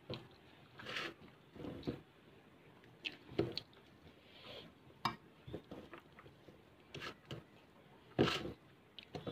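Fingers mixing rice and potato fry on a steel plate: soft squishing of the food and irregular light clicks and taps of the hand against the metal, the loudest about eight seconds in.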